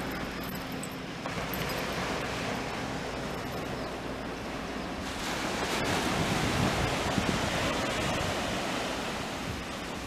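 Small waves breaking and washing up a flat sandy beach, an even rushing surf with wind on the microphone; the surf grows louder about halfway through.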